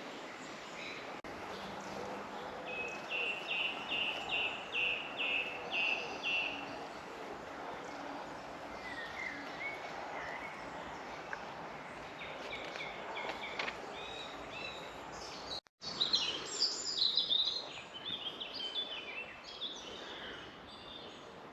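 Woodland birds singing in spring. One bird repeats a single short high note about twice a second for some four seconds, a few chirps follow, and then a busier burst of song from several birds comes after a brief break. All of it sits over a soft steady background hiss.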